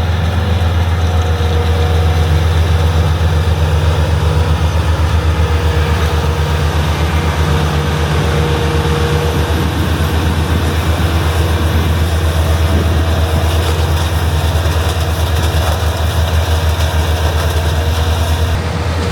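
Heavy harvest machinery engine running steadily under load, a deep low hum with a held higher tone over it; the sound changes abruptly a little before the end.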